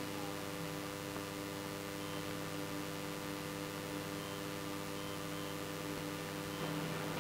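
Steady electrical hum made of several low tones, with a few faint short high beeps spread through it as keys are pressed on the duplicator's keypad.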